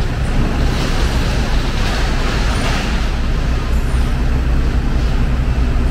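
Airport apron passenger bus driving past close by: a steady low engine rumble with a broad hiss that swells about two to three seconds in.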